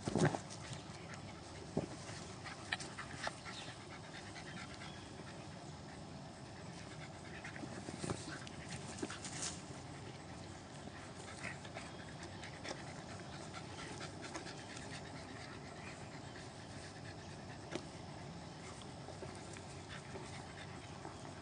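Dogs panting as a Siberian husky and a large black long-haired dog play-wrestle, with a few short scuffling knocks scattered through it.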